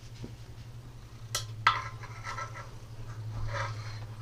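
Metal tools clinking and scraping against the open aluminium crankcase of a Predator 212cc engine as a socket on an extension is worked inside it. A sharp, ringing clink about a second and a half in is the loudest, followed by softer clinks.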